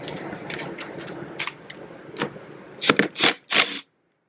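Metal tools and engine parts being handled: a run of short clicks and clinks, then a few louder scrapes about three seconds in that cut off suddenly into silence.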